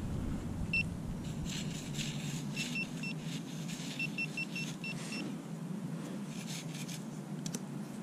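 Orange Garrett Pro-Pointer pinpointer giving short high-pitched beeps, first singly, then in a quick run of about seven a little past the middle, as it closes in on a buried coin; fingers scrape and dig through sand between the beeps.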